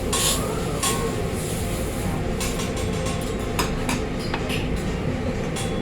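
Steady low rumble of a busy hibachi restaurant, with sharp metal clinks every second or so from the chef's spatulas on the teppanyaki griddle.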